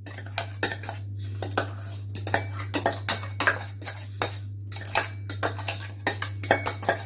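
Steel mixer-grinder jar knocked and scraped against the rim of a steel mixing bowl while ground edible gum is tipped out of it: irregular sharp metallic clinks, two or three a second.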